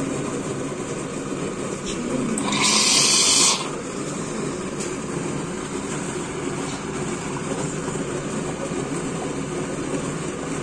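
WMF automatic coffee machine running as it dispenses a cappuccino, a steady pump-and-motor noise with liquid streaming into a porcelain cup. A loud hiss lasts about a second, starting about two and a half seconds in.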